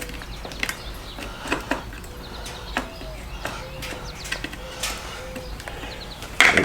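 Scattered clicks and light knocks of parts and hand tools being handled while fitting a motorcycle headlight, the loudest one near the end, with faint short chirps in the background.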